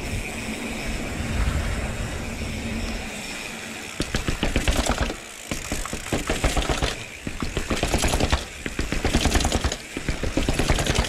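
Evil Wreckoning mountain bike being ridden: steady wind and rolling rush for the first few seconds, then rapid rattling clicks in bursts of about a second with short breaks between them.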